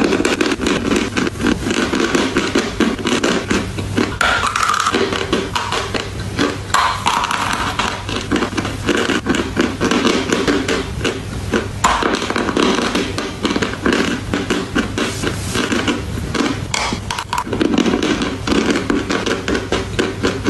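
Close-up crunching and chewing of dry gym chalk: a dense, steady stream of crisp cracks and crackles as the chalk breaks apart between the teeth.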